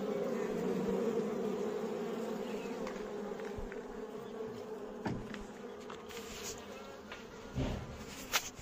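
A colony of Indian honey bees (Apis cerana indica) buzzing in a steady hum that slowly grows a little quieter, with a few brief knocks in the second half.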